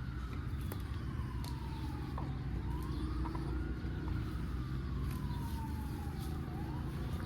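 Distant emergency-vehicle siren wailing, its pitch slowly rising and falling about every two to three seconds, over a steady low rumble.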